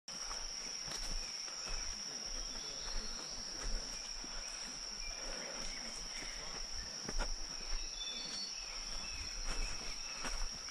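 Steady, high-pitched drone of jungle insects, one unbroken tone, with a few sharp knocks from footsteps on the dirt trail.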